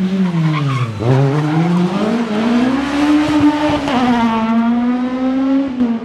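Suzuki Swift rally car's engine pulling hard on a tarmac stage: its note drops sharply to a low about a second in, then climbs again and holds high and steady.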